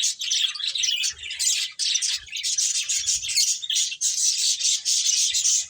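Pet finches chirping, many short high calls overlapping without a break.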